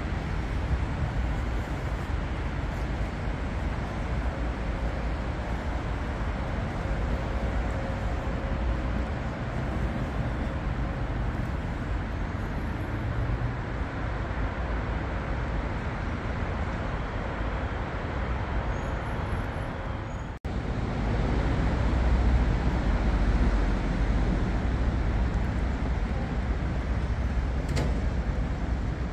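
Steady city street traffic: passing cars and buses with a constant low rumble. About twenty seconds in the sound drops out for an instant, and the rumble is a little louder afterwards.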